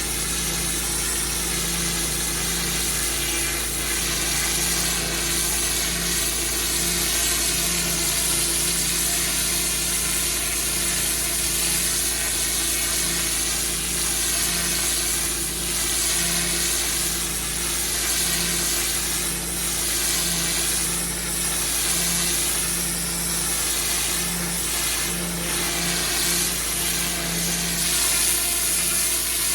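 Pressure washer engine running steadily while a high-pressure water jet hisses against block paving, the hiss rising and falling as the spray moves.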